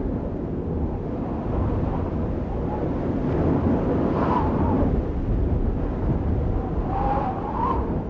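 A steady, low rushing noise like wind, with faint whistling tones that waver up and down about four seconds in and again near the end.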